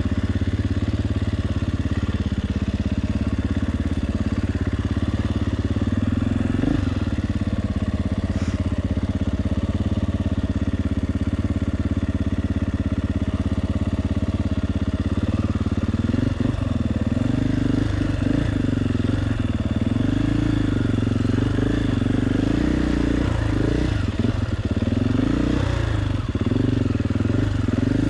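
KTM 450 EXC four-stroke single-cylinder enduro motorcycle engine running at a steady, even speed, then from about halfway through revving up and down over and over under changing throttle.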